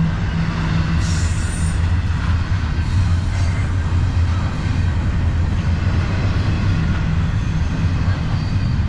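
Double-stack intermodal freight cars rolling past at close range: a steady, heavy rumble of steel wheels on the rails, with a brief high wheel squeal about a second in.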